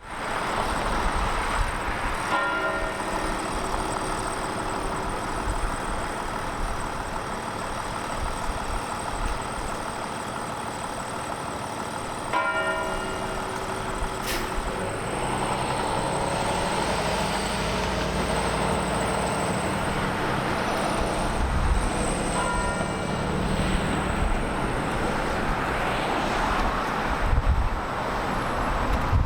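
A single large church bell tolling slowly as a memorial knell: three strokes about ten seconds apart, each ringing on and fading away. Steady street traffic noise lies underneath.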